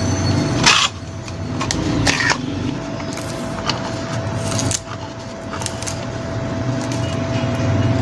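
A steady engine-like drone with a thin steady tone running over it. A few scrapes and knocks come about one, two and nearly five seconds in, as the ceiling fan motor's capacitor cover is twisted loose and lifted off.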